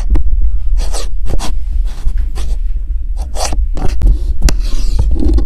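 Handling noise: a phone's microphone rubbing and scraping against fabric and fingers as it is moved about, in irregular loud strokes over a steady low rumble.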